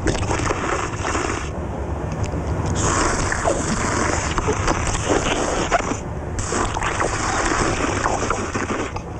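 A man slurping ramen noodles in long wet sucks, with a break about a second and a half in and a shorter one about six seconds in. A steady low rumble runs underneath.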